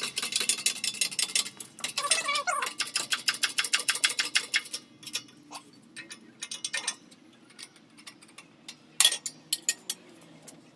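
Hydraulic bottle-jack shop press being worked to press a new carrier bearing onto a differential carrier: a fast run of metallic clicks for about five seconds, with a brief squeak about two seconds in. Then come scattered single clicks and knocks as the press is let off and the carrier handled.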